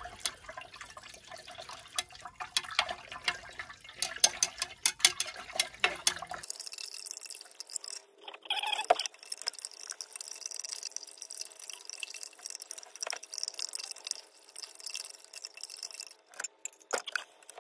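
Glass stirring rod clinking and scraping against the inside of a glass beaker while a dark silver-oxide slurry is stirred during its sugar-and-lye reduction to silver metal, an exothermic reaction. After about six seconds the clinks give way to a steady high hiss with a few faint squeaks.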